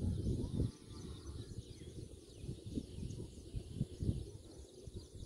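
Outdoor ambience: uneven low rumbling on the microphone, with faint bird chirps and a steady high hiss.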